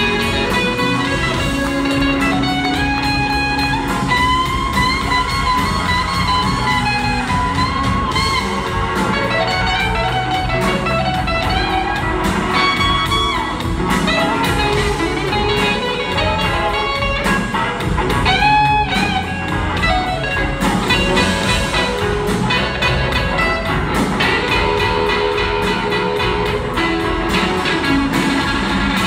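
Live blues band playing a slow blues: a lead guitar solo of long sliding, bending notes over drums and bass.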